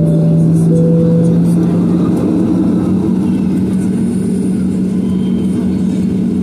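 Cabin of a Boeing 737-800 taxiing, its CFM56 engines running with a steady hum whose low tone rises slightly about two seconds in. A two-note high-low tone sounds twice over it and stops about a second and a half in.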